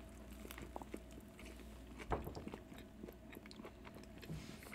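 Faint biting and chewing of ham and cheese sandwiches on soft hoagie buns, with small wet mouth clicks and a louder bite about two seconds in.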